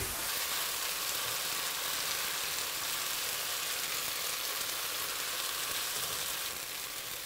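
Stir-fried water spinach and garlic sizzling steadily in a hot nonstick frying pan, with the burner just switched off; the sizzle eases slightly near the end.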